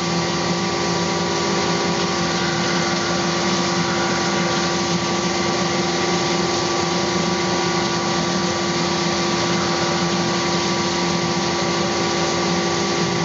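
Five-axis CNC milling machine cutting a putter head under flood coolant: a steady machining noise with several constant tones from the spindle and cutter, over the hiss of the coolant spray.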